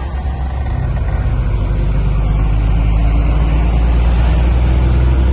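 Truck engine and road noise heard inside the cab, a steady low hum that grows louder over the first couple of seconds, then holds.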